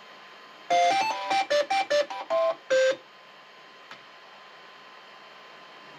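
Bambu Lab A1 Mini 3D printer beeping a short melody of about ten quick notes at changing pitches, lasting about two seconds: its signal that the print has finished. A single faint click follows about a second later.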